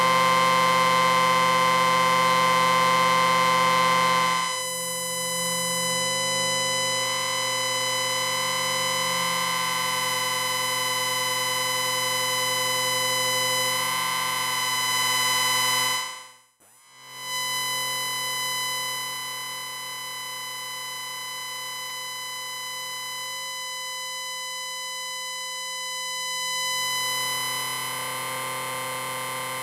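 Amplifier whine: a steady electronic tone made of many held pitches layered together. Its character shifts a few times, and it cuts out briefly just past the middle before carrying on.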